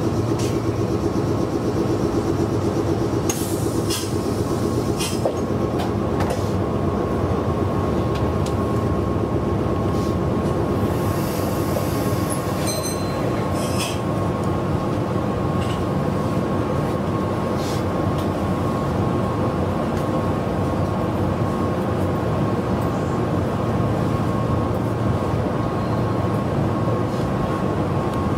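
Meitetsu 6800 series electric train running along the line, heard from on board: a steady rumble of wheels on rail with a constant hum. A few short clicks and a brief high-pitched wheel squeal come around the middle.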